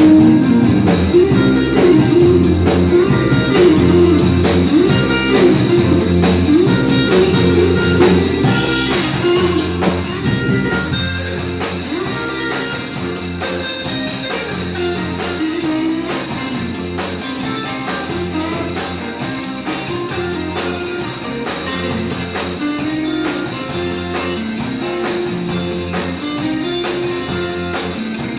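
A band rehearsing, playing guitar and drums with no singing; the playing drops to a quieter level about ten seconds in.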